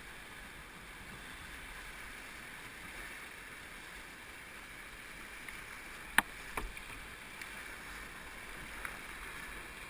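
Rushing whitewater of a creek in flood, a steady hiss around a canoe running a rapid. A sharp knock comes about six seconds in, with a second one just after.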